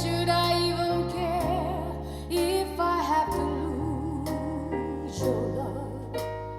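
A recorded song with a wavering, vibrato singing voice over instrumental accompaniment and a sustained bass line, played through an Elekit TU-8900 single-ended 2A3 tube amplifier and a two-way Vifa bookshelf speaker.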